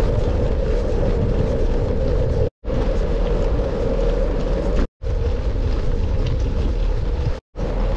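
Wind buffeting the microphone over a steady road noise while riding a bicycle, cut to total silence three times for a split second.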